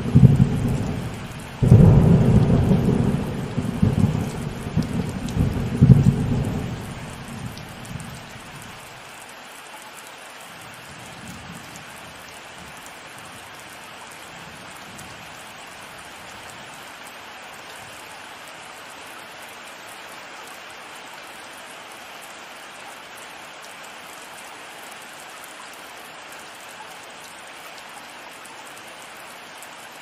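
Heavy rain falling steadily, with a thunderclap that breaks sharply about two seconds in and rumbles in several swells before dying away at about nine seconds. After that only the steady hiss of the rain is left.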